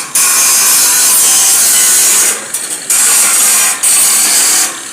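A power tool working metal makes a loud, harsh, steady noise. It breaks off for about half a second a little over two seconds in, dips briefly, then falls away near the end.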